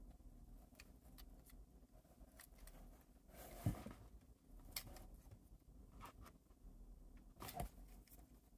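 Faint handling sounds of small parts and their packaging: light rustles and ticks, with a few sharper clicks about three and a half seconds in, near five seconds, and about seven and a half seconds in.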